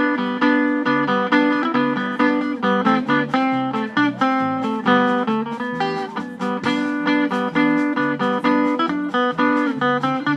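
Live trio playing an instrumental passage: a hollow-body electric guitar picks a quick note-by-note melody over plucked upright bass notes.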